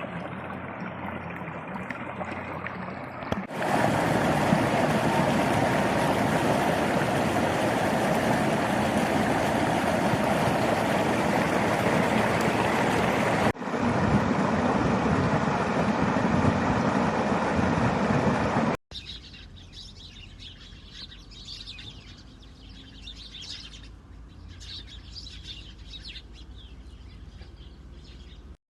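Steady rushing of heavy rain and running floodwater, loud for about fifteen seconds across a cut. Then a quieter stretch with birds chirping over a low background.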